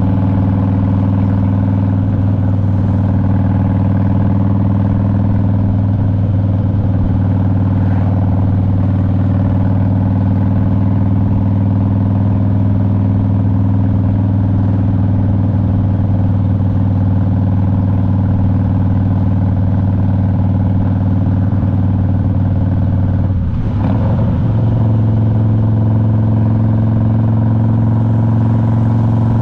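Harley-Davidson Road King V-twin engine running steadily under way. About 24 seconds in, the engine note briefly dips and wavers, then settles at a slightly higher pitch.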